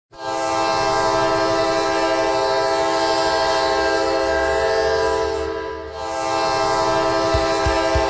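San Diego Gulls' goal horn blowing a long, loud blast, breaking off briefly about five and a half seconds in and then sounding again. Near the end a regular low thump starts under it, about three beats a second.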